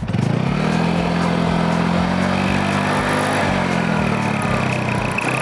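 TVS Ntorq 125 scooter's single-cylinder engine revved with the throttle, held at higher revs for about three seconds, then dropping back toward idle. A thin, steady high whistle comes in about halfway through and carries on to the end, the note of the turbo whistle fitted at the exhaust outlet.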